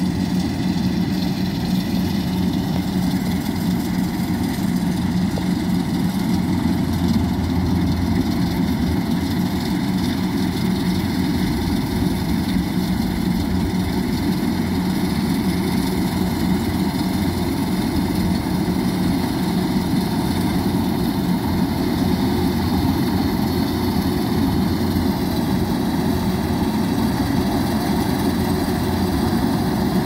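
Kubota rice combine harvester's diesel engine running steadily, an even low drone without breaks.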